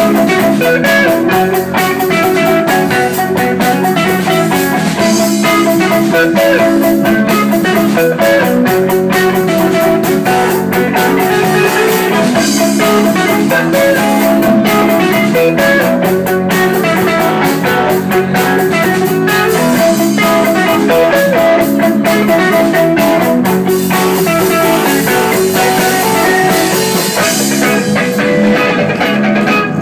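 Live rock band playing loud and steady: electric guitars, bass guitar and a drum kit.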